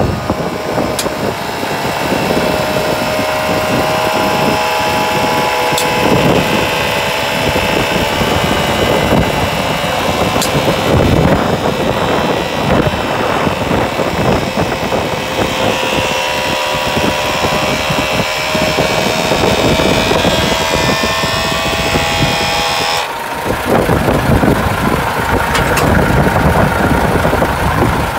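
Hino Profia heavy truck's diesel engine idling steadily, with a steady whine above the engine note.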